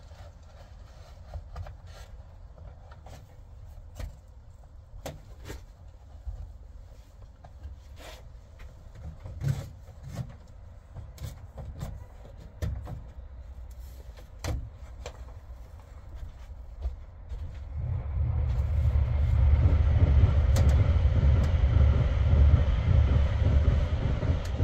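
Scattered knocks and clicks, then about three quarters of the way in a loud, steady low rumble of a vehicle running close by.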